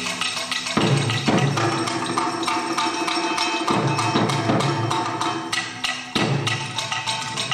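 Music: a dense bed of held instrumental tones broken by several sharp percussion strikes, about a second in, around four seconds in and about six seconds in.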